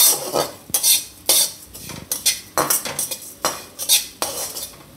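A spatula scraping and stirring whole coriander and cumin seeds around a steel kadai, with the seeds rattling against the pan. The strokes are rhythmic, about one and a half per second, as the seeds are dry-roasted.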